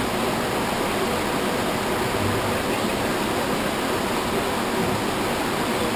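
Steady, even hiss of background noise, with no other sound.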